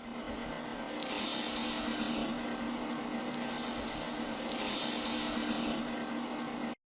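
A small motor-driven machine running with a steady hum, broken by three spells of louder, high rasping hiss, each about a second long.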